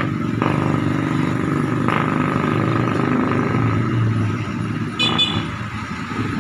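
Street traffic: the engines of motorcycles and motorcycle sidecar tricycles running as they pass close by, with a short horn toot about five seconds in.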